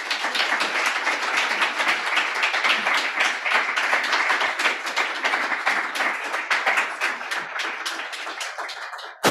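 Audience applauding, a dense steady clapping that thins out and dies away near the end.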